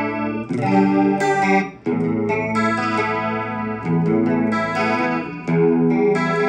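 Clean electric guitar played through the chorus effect of a Zoom G5n multi-effects processor: chords struck and left to ring, changing every second or two, with a shimmering chorus on them.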